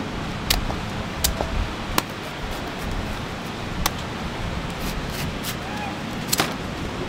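A handful of sharp clicks and knocks, five or so spread unevenly over the seconds, from work at a street durian stall, over a steady background of street noise.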